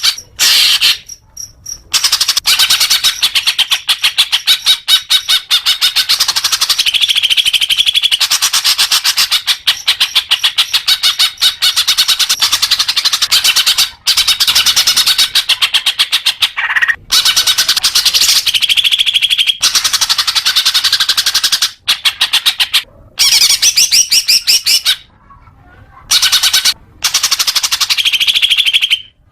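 Green leafbird (cucak hijau) singing a long, loud run of very rapid chattering notes, broken by a few short pauses.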